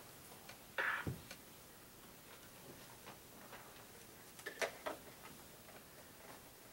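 Quiet room with a few faint, irregular clicks and taps, and a short rustling sound about a second in.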